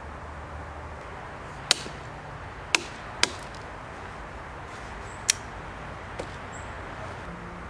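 Four sharp knocks at uneven spacing, then a fainter fifth: the glass-breaker spike on the back of a Kizlyar Supreme UTE folding knife rapping a walnut shell to crack it open.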